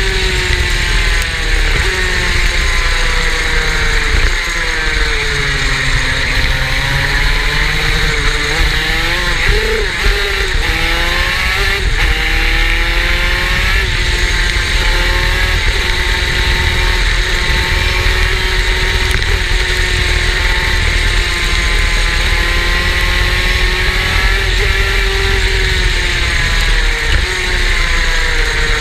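Superkart's two-stroke engine under way, its pitch climbing and falling again and again as the revs rise and drop, with a steady hiss underneath.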